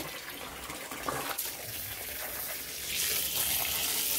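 Water from a hose running into a plastic basin of water and over boiled radish greens in a pot, the splashing getting louder about three seconds in. A brief knock right at the start.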